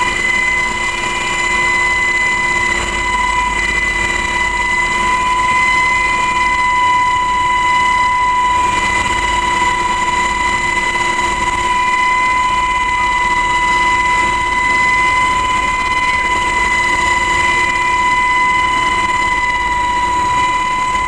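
Helicopter in flight, heard from inside the cabin: a steady high-pitched turbine whine over constant engine and rotor noise.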